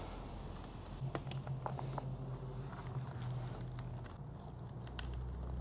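Faint rustling and a few light clicks of motorcycle wiring harness cables and plastic connectors being handled and tucked in by hand, over a low steady background hum.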